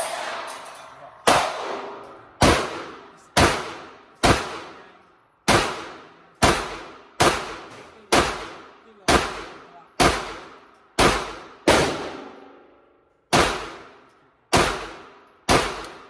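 Pistol shots on an indoor range, about sixteen at an uneven pace of roughly one a second, each ringing off in a long echo from the concrete walls.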